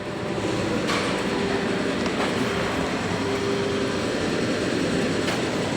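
Steady mechanical hum and noise, with a faint held tone and a few faint clicks.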